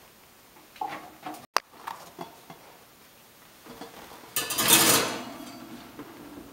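Household handling sounds: a few small knocks, then a loud clatter of cookware being handled at a low kitchen cabinet about four and a half seconds in.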